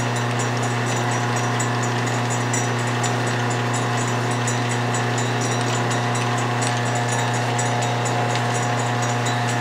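Atlas Craftsman 12-inch lathe running free with no cut, its motor humming steadily while the change-gear train, which includes a 3D-printed PLA 40-tooth gear, meshes with a fine, rapid ticking.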